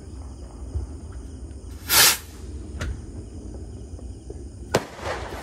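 Ground-launched fireworks going off. There is a loud burst lasting about half a second about two seconds in, then a sharp crack and another burst near the end.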